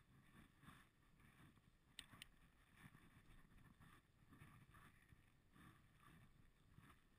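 Near silence: faint low rumble of tyres and wind from a road bicycle riding along, with two light clicks close together about two seconds in.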